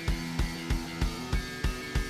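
Background music with a steady kick-drum beat, about three beats a second, under held bass and guitar tones.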